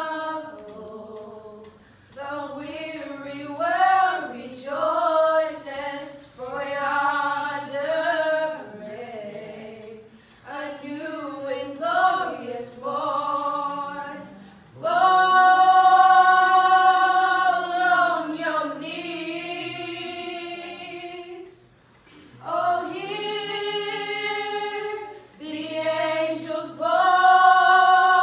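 A group of four girls singing a cappella in harmony into microphones, in short phrases with brief pauses between them and a loud chord held for a few seconds about halfway through.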